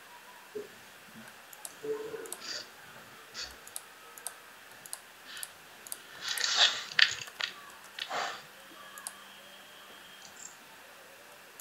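Computer mouse and keyboard clicks, scattered and irregular, with a louder short noise about six and a half seconds in.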